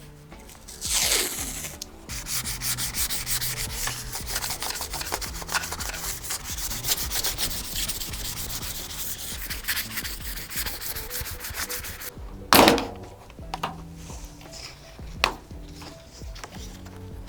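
Sandpaper being rubbed over a car body panel in rapid back-and-forth strokes, a dense scratchy rasp, as filler and paint are sanded down before primer. About twelve seconds in comes a single loud sweeping scrape, then a few sharp clicks.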